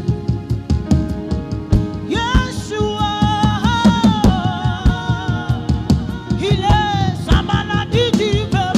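Gospel worship music: sung voice with a band, held keyboard chords and a steady drum beat.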